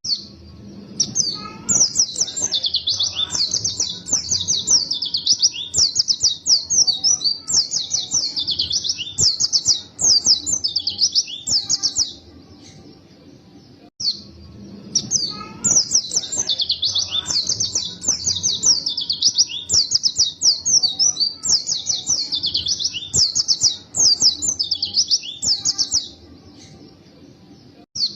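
A white-eye (pleci) singing hard: long, fast runs of high twittering notes with short pauses between phrases. The same roughly 14-second stretch of song plays twice.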